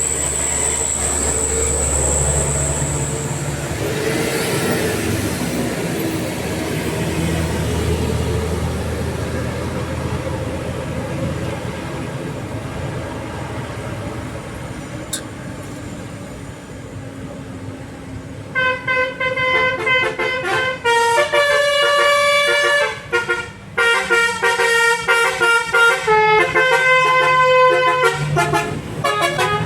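Vehicle engine and road noise, then about two-thirds of the way through a bus's telolet basuri musical air horn starts playing a quick melody of stepped notes, loud, and keeps on to the end.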